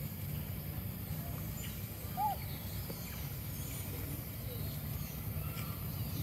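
Steady low outdoor background rumble, with one short chirp that rises and falls a little over two seconds in.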